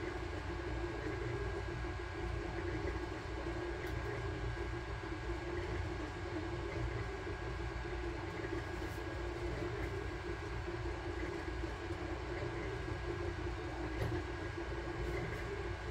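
Sunlu Terminator 3 3D printer running mid-print: a steady mechanical hum from its fans and stepper motors as the print head moves, with a faint high steady tone over it.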